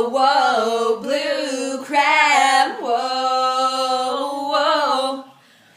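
Two women singing a cappella, long held wordless notes with a wavering, bending pitch, breaking off about five seconds in.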